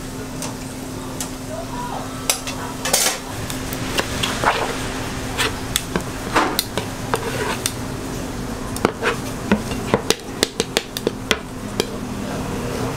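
Metal knife and scraper clicking and scraping against a plastic cutting board as fish-cake paste is spread and rolled, with a quick run of sharp clicks about two-thirds of the way in, several a second. A steady low hum runs underneath.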